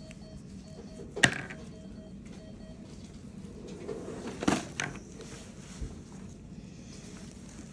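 Handling noises at an IV catheter taped into a dog's foreleg: one sharp click about a second in and two softer ones a little after the midpoint, over steady room noise. A faint run of short, evenly spaced beeps sounds during the first few seconds.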